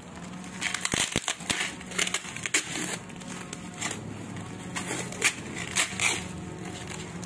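Cardboard and packing tape being torn open and crumpled by hand: a dense run of crackling and ripping with sharp snaps, starting about a second in.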